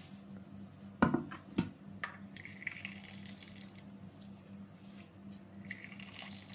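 Fine bulgur scraped with a spoon from a glass bowl onto a stainless steel tray, with two sharp knocks against the metal about a second in, then a pouring hiss of grain. Near the end, water poured from a glass onto the grain in the tray, over a steady low hum.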